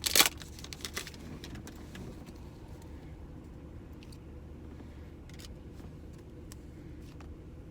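A foil trading-card packet tearing open with a short crinkle at the start, then faint scattered clicks and rustles of cards being handled over a steady low hum in the car's cabin.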